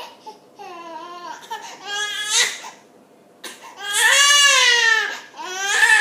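A baby crying out in four drawn-out cries; the third is the longest and loudest.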